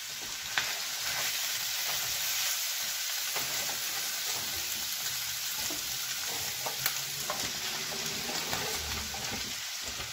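Chopped vegetables and shredded chicken sizzling steadily in a frying pan, stirred now and then with a few faint clicks of the spatula.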